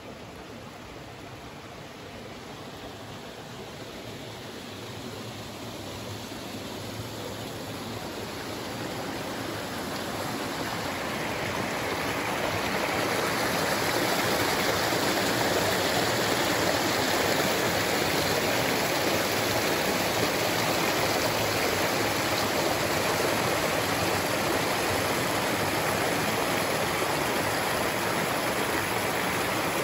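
A small woodland brook, running after a day and a half of rain, rushing and splashing over rocks in small cascades. The water sound grows steadily louder over the first dozen seconds or so, then holds steady.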